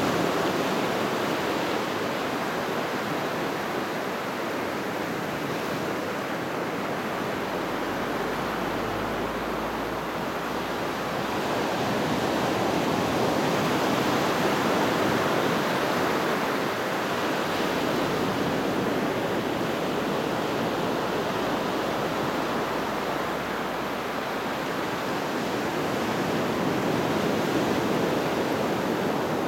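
Ocean surf on a sandy beach: small waves breaking and washing up the sand in a continuous rushing wash, swelling louder about halfway through and again near the end as bigger waves come in.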